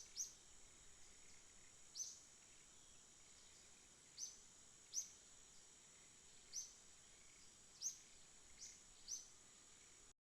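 A small bird chirping: about nine short, high, downward-sliding chirps at irregular intervals, over a faint steady high-pitched tone.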